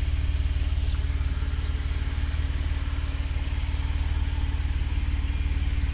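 Jeep Wrangler JK's V6 engine idling steadily, an even low hum with a fine regular pulse.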